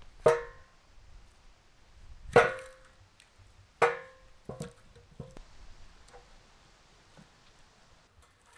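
Cookware or kitchen utensils knocking together, each knock ringing briefly: three loud knocks in the first four seconds, then a few softer ones.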